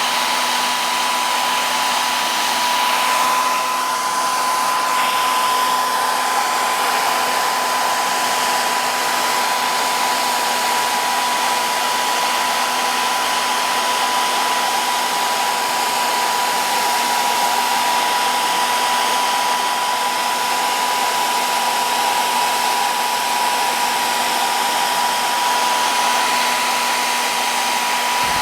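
Small electric blower motor running steadily: an even rush of air with a constant high whine, unchanged throughout.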